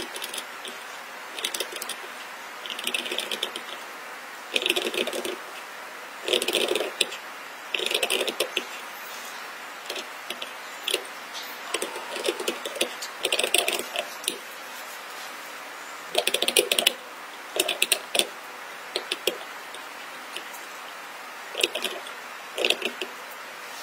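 Steel carving knife cutting into a stone seal. Each stroke is a short burst of rapid, scratchy clicks as the blade chips out stone, repeated every second or two.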